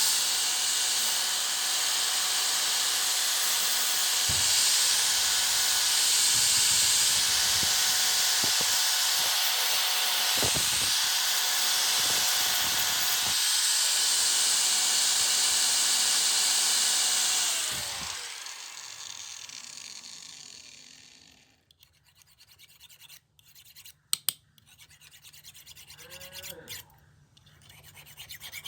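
An electric workshop power tool runs with a steady hiss and hum, then is switched off and winds down, its tone falling about 18 seconds in. A few light clicks and knocks follow in the quiet.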